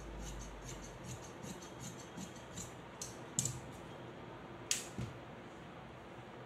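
Tailor's scissors cutting cloth in a run of short, crisp snips, a few a second, that stop about three and a half seconds in, with two sharper clicks about a second apart near the end.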